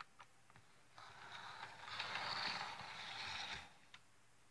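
Bachmann HO scale model diesel locomotive running along the track, a whirring rattle of its motor and wheels that swells for about two seconds as it passes close, then fades. A few faint clicks come before and after it.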